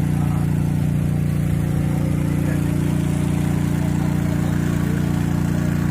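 Small engine of a farm machine running steadily at a constant speed, with no change in pitch or loudness.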